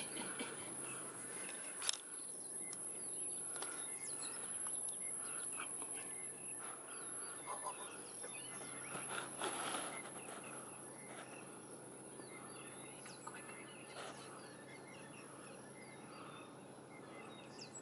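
Outdoor bush ambience: birds chirping on and off over a low steady hum, with a single sharp click about two seconds in.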